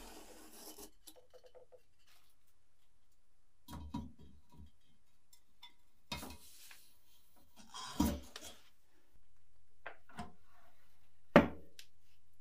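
A hot perforated steel casting flask and metal tongs knocking and scraping as the flask is handled and set onto a vacuum casting machine, with several sharp metallic clanks, the loudest near the end. A low steady hum comes on about nine seconds in.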